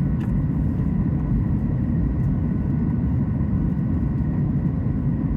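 Boeing 737 MAX 8's CFM LEAP-1B engines and airflow heard inside the passenger cabin: a steady, even low rumble with faint steady whine tones above it.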